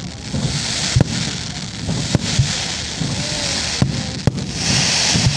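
Fireworks display: about five sharp bangs of aerial shells bursting at uneven intervals, over a steady hiss.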